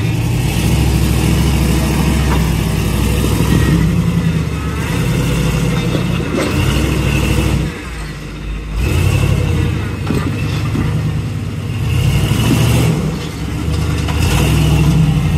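Jeep Wrangler YJ rock crawler's engine working under load as it crawls over boulders, the revs rising and falling, with a brief easing off about eight seconds in.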